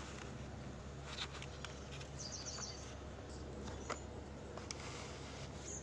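Faint handling of a cardboard oil-pastel box as its lid is opened: light ticks and rustles over a steady low hum, with a short run of high-pitched chirps about two seconds in.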